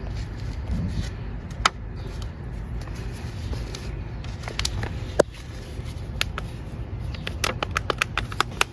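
Plant pots and potting soil being handled: a few sharp plastic clicks, then a run of quick crackling ticks near the end, over a steady low rumble.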